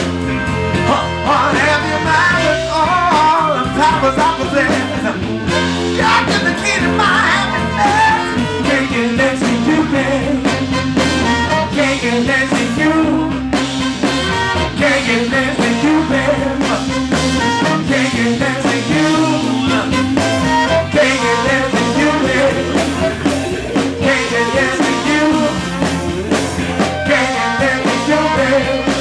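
Live band playing an up-tempo number: saxophone and trumpet over electric guitar, keyboard and drums, with singing.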